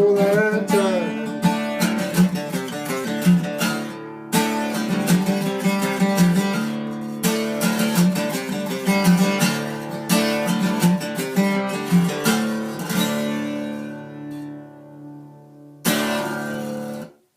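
Acoustic guitar playing a blues instrumental ending with a run of picked and strummed notes. The notes die away about 14 seconds in, then a final strummed chord rings and is cut off abruptly near the end.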